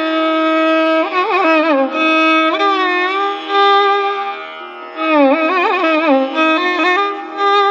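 Carnatic violin duet playing in raga Mohanakalyani. A long held note gives way, about a second in, to phrases whose notes slide and waver in ornamented gamakas, over a steady drone.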